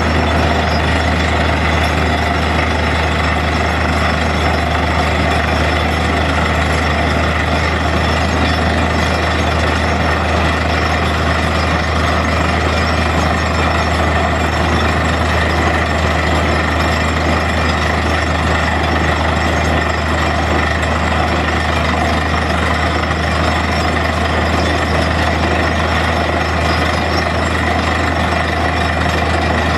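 Truck-mounted borewell drilling rig running steadily while drilling, its engine and drill working without a break.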